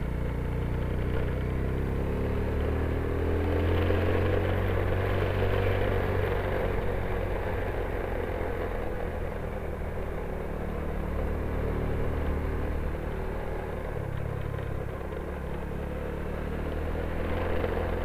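Yamaha Jupiter underbone motorcycle's engine running while riding, its pitch rising and falling with the throttle.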